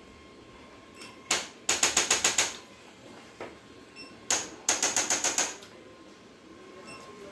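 Chiropractic adjustment giving two runs of sharp clicks, each a single click followed by a quick, even train of about seven, the two runs about three seconds apart.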